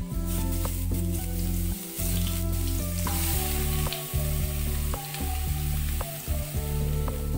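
Hot oil sizzling in a pan: fried potato cubes being lifted out, then chopped spice paste frying, the sizzle louder from about three seconds in. Background music with steady low notes plays under it.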